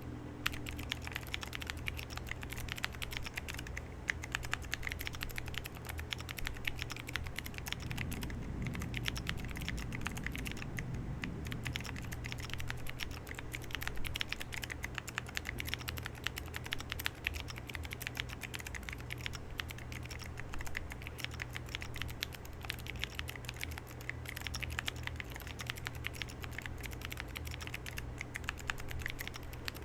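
Fast continuous typing on a 40% mechanical keyboard with Kailh-housing, Cherry MX Blue-stem frankenswitches, light and unevenly lubed, under Aifei Tiffany keycaps on a POM plate: a dense, irregular stream of key clicks.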